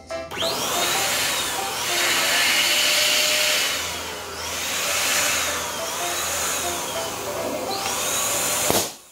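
Electric balloon pump running steadily, blowing up a latex balloon for about eight seconds, until the balloon bursts with one sharp pop near the end and the pump noise stops. Background music plays quietly underneath.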